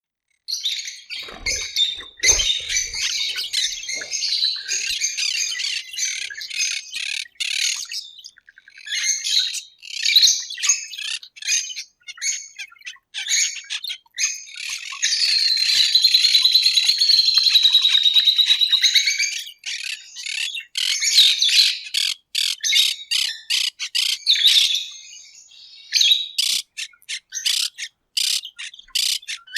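Parrots and parakeets calling and chattering, many loud, sharp calls overlapping. About halfway through there is a few seconds of continuous trilling chatter. Near the end it breaks into a quick run of short separate calls.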